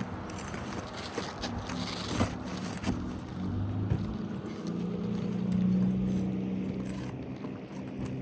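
Nails being pried out of asphalt roof shingles: scraping and a few sharp knocks from the tool, over a steady low machine hum that swells about halfway through.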